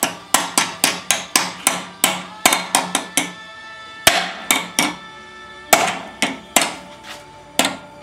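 Hammer blows on the metal of a lawnmower engine's flywheel and shaft, trying to shock a tight flywheel loose while it is levered upward. Each blow rings. The blows come about three a second in a fast run of a dozen or so, then in shorter groups after a brief pause.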